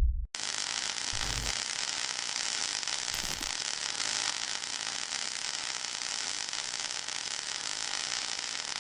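A steady hiss of static-like noise that starts abruptly just after the start.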